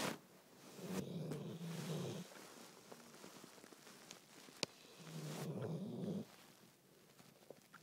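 A sleeping, dreaming dog making two low rumbling grumbles with its breath, each about a second long and a few seconds apart, with breathy hisses between them. A single sharp click a little past halfway.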